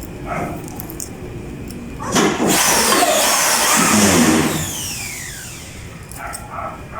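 A motor vehicle engine passes close by. Its sound swells suddenly about two seconds in, then fades over the next few seconds as its pitch falls.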